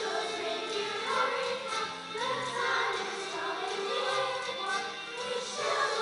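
Middle school choir singing a song together, many young voices in a steady, continuous line.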